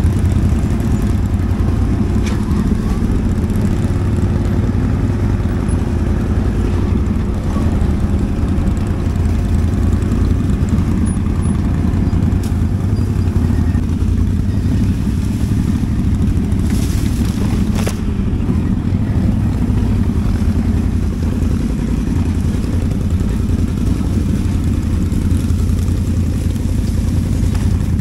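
Quad bike (ATV) engine running steadily as a low, even drone, without revving up or down.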